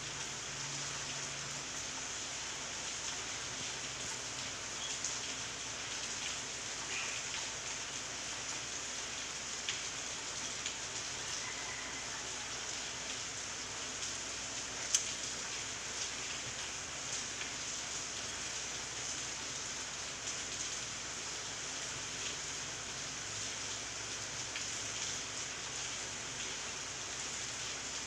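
Steady rain falling on garden plants and leaves: a continuous even hiss with scattered drops ticking. A single sharper tick stands out about halfway through.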